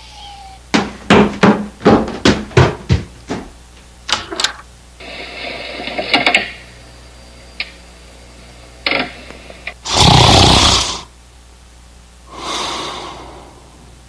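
A quick run of knocks and thumps, then loud, exaggerated snoring from the sleeping innkeeper puppet's performer: a long, loud snore about ten seconds in and a softer breath out a couple of seconds later.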